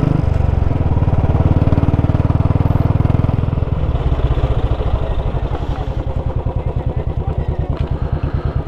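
Motorcycle engine running under way. About four seconds in the revs drop and it settles into a slower, even beat of firing strokes as the bike slows down.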